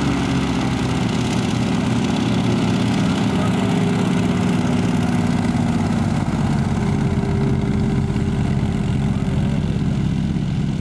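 Full-scale hovercraft's engine and fan running steadily, its pitch drifting slightly.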